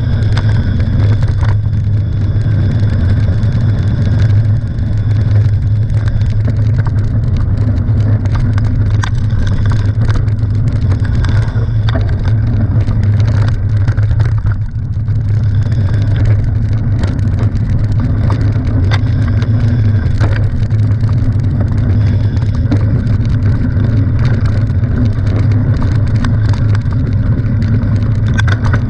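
Mountain bike rolling down a gravel-and-leaf forest singletrack, heard through a handlebar-mounted camera: a steady low rumble of wind and frame vibration, with tyre crunch and frequent small rattles and clicks from the bike. The rumble eases briefly about halfway through.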